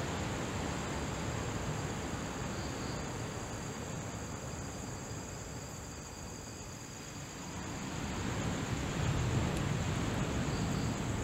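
Insects, such as crickets, chirring in a steady high-pitched pulsing chorus, over a low rumbling noise that dips for a moment and then swells again in the second half.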